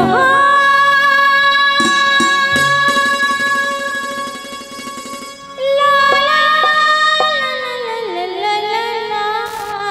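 A woman sings live into a microphone over band accompaniment. She holds long notes, starts a new phrase about halfway through, and slides down in pitch near the end, with scattered drum strokes underneath.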